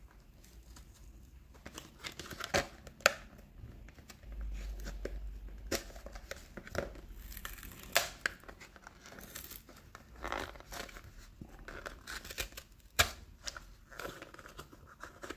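Cardboard-and-plastic blister pack of a Hot Wheels diecast car being torn open by hand, the plastic crinkling, with irregular crackles and sharp snaps.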